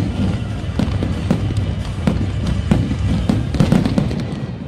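Fireworks display: irregular bangs of shells bursting, about two or three a second, over a steady low rumble.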